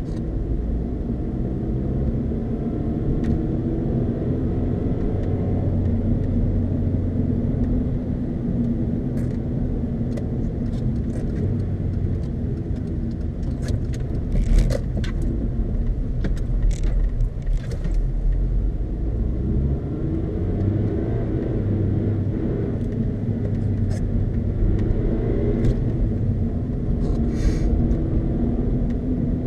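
Car engine running inside the cabin while driving on a snowy road, its pitch slowly rising and falling as the revs change. Several sharp clicks and knocks come through in the middle and once near the end.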